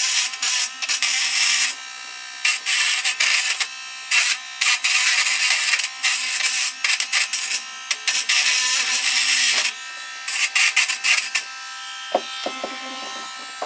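Small electric rotary grinder (Dremel-type) with an abrasive bit grinding corrosion off an aluminium antenna trap's contact pad. The grinding comes in frequent short bursts over a steady motor whine, and in the last couple of seconds the tool runs on its own, off the work.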